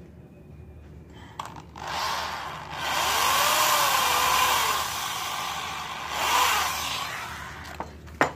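Corded electric drill with a small bit boring through thin wood: the motor winds up about two seconds in, runs loudly for a few seconds with its pitch wavering, eases off, speeds up again briefly, then stops. A sharp click comes near the end.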